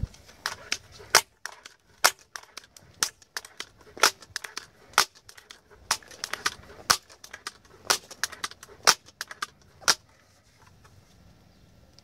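Daisy 880 multi-pump air rifle being pumped: the pump lever clacks about once a second for ten strokes, with lighter clicks between.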